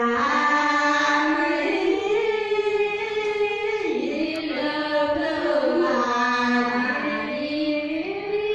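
A group of women singing a song together in long held notes, the melody stepping from note to note every second or so.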